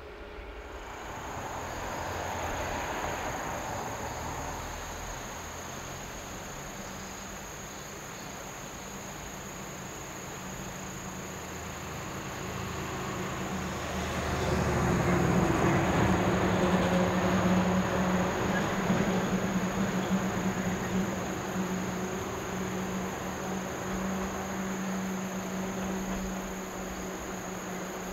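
A KiHa 40 single-car diesel railcar running along a viaduct: a low engine hum and running noise that grows to its loudest about halfway through, then eases off. Insects keep up a steady high trill throughout.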